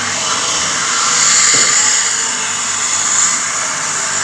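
Power tool running steadily with a high-pitched whine and hiss.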